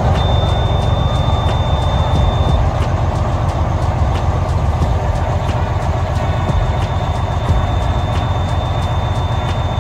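Diesel semi-truck engine idling steadily just after being started, with a steady high-pitched warning tone sounding for about two and a half seconds and again from about six seconds in.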